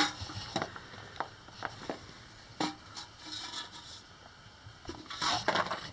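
Footsteps crunching and scuffing on loose rock and dirt, a few scattered steps with a longer scrape near the end.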